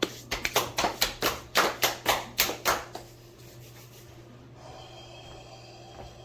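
A quick run of about a dozen hand claps, roughly four a second, stopping about three seconds in. After that there is only quiet room noise with a low hum.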